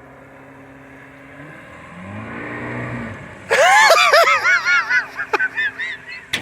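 An 85 hp Evinrude outboard running out on the water, its pitch swelling up and falling back about two seconds in as the boat speeds up. From about halfway, a person laughs and whoops loudly in short repeated bursts.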